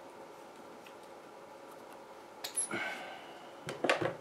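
Hand-handling noises on a workbench as a small wrench and an RC crawler wheel are set down: quiet at first, then a sharp click and a short scrape about two and a half seconds in, and a few knocks near the end.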